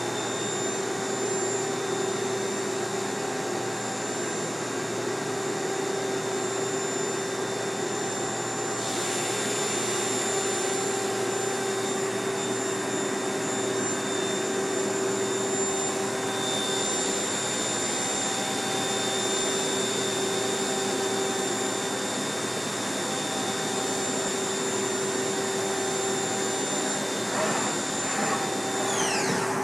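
Supermax Rebel vertical machining center running with its spindle at steady speed: a high steady whine over the hum and rush of the machine's motors and fans. Near the end the whine falls away as the spindle spins down.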